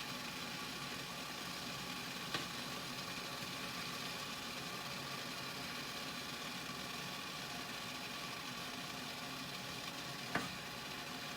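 Steady mechanical hum with two light clicks, one about two seconds in and one near the end.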